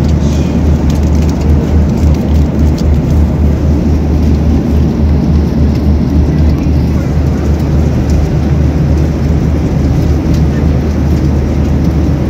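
Steady low drone of a jet airliner's cabin noise in cruise flight, the engines and rushing air heard from inside the cabin.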